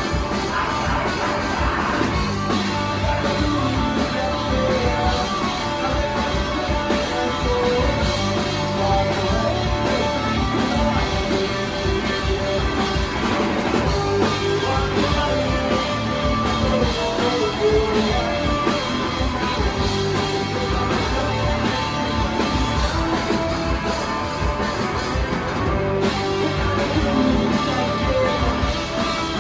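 Live rock band playing: electric guitars over bass and drums, loud and unbroken.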